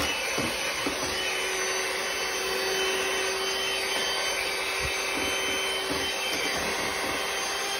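Electric hand mixer running steadily at one speed, its beaters whirring through ice cream mix in a stainless steel bowl, with a few low knocks.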